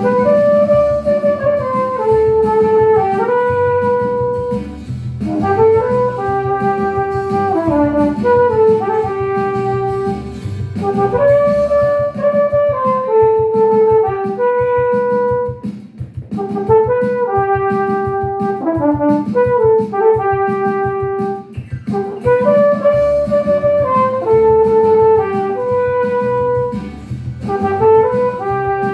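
Flugelhorn playing a pop-song melody in phrases of a few seconds with short breaks for breath between them, over a backing track with a steady beat.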